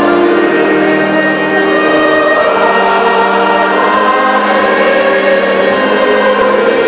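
Sacred music during Mass: a choir with instruments holding sustained, slowly changing chords.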